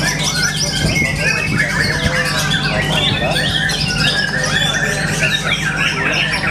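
White-rumped shama (murai batu) singing a rapid, varied stream of chirps, whistles and harsh squawky notes, with other birdsong overlapping it and a steady low hum underneath.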